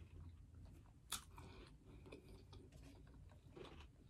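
A person chewing a mouthful of food, faintly, with one sharp crunch about a second in.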